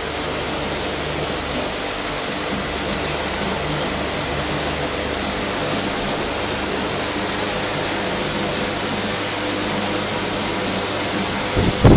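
Aquarium pump and aeration running: a steady hiss of water and bubbles over a faint hum, with a couple of loud knocks right at the end.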